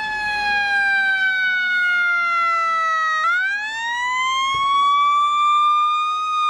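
Emergency vehicle siren wailing: the pitch slides slowly down for about three seconds, jumps back and rises smoothly, then starts to fall again near the end.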